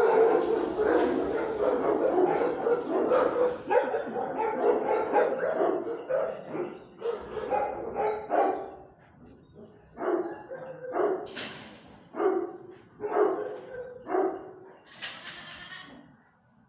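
Dogs barking: a stretch of rapid, continuous barking, then separate barks about a second apart from about ten seconds in.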